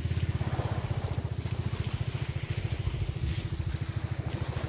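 A small engine running steadily, a rapid, even, low putter.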